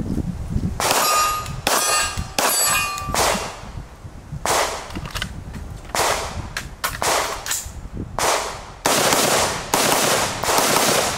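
A string of gunshots: handgun shots, spaced unevenly, for the first five seconds or so, with a metallic ringing clang among the early shots. A quicker run of rifle shots about half a second apart near the end.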